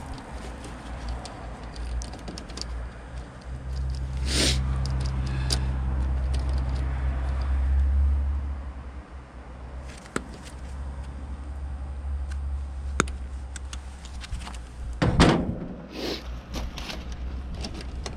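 Scattered metallic clicks and knocks of tools and parts being handled during a heat pump contactor repair, with one loud knock about 15 seconds in, over a low hum that swells for a few seconds and then drops away.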